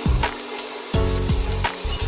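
Background music with a steady beat, over a constant rasping hiss with a thin high whine that sets in right at the start.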